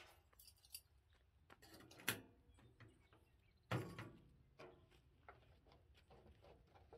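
Faint handling noises: scattered small clicks and two louder short knocks, about two seconds in and again just before four seconds in.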